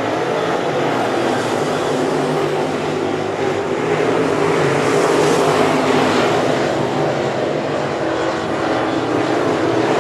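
Dirt late model race cars with crate V8 engines running hard around the dirt oval, a steady loud engine drone that swells louder about five seconds in.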